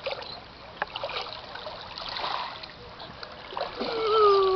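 Shallow sea water splashing and sloshing softly as a baby is dipped into it. Near the end a long, high drawn-out vocal cry starts and holds its pitch.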